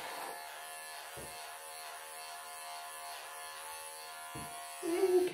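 Wahl electric pet clippers buzzing steadily as they shave through a longhaired cat's coat, with a short, louder sound just before the end, when the buzzing stops.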